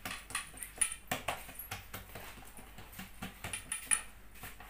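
Hands patting and pressing an oiled ball of msemen dough flat on a glazed terracotta dish: an irregular run of short, soft wet slaps and taps.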